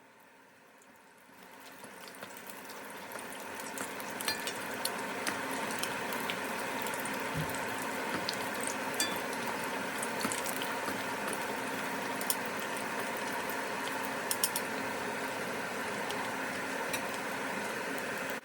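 Egg-dipped kubba deep-frying in hot vegetable oil: a steady sizzle with scattered pops and crackles. It builds over the first few seconds and cuts off abruptly at the end.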